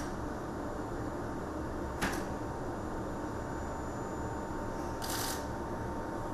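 Steady low rumbling noise in a fighter-jet flight simulator cockpit, with a sharp click at the start and another about two seconds in, and a short hiss about five seconds in.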